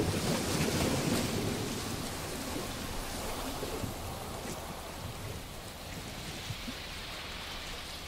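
Sea waves washing in over a rocky beach, a surge that is loudest in the first second or so and then slowly subsides into a softer hiss of water draining back among the rocks.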